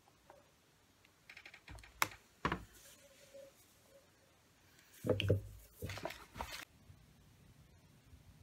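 Handling noise from a paper shopping bag: scattered light taps, then two sharp knocks about two seconds in, then a busier cluster of knocks and rustling between about five and six and a half seconds.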